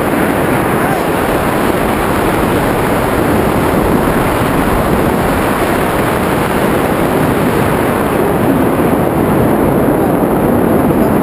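Steady wind rushing over the camera microphone during a tandem parachute descent under an open canopy.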